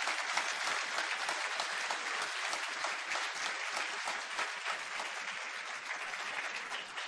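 Audience applauding, dense steady clapping that slowly tapers off near the end.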